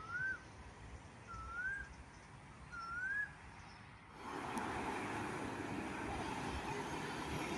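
A bird gives three short rising whistled calls about a second and a half apart. From about four seconds in, a steady broad noise of passing vehicles sets in, with the sound of a train on the line just beginning to build.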